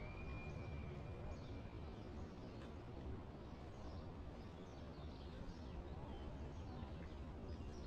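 Small birds chirping again and again over a steady low outdoor rumble, with a thin held whistle for about the first two seconds.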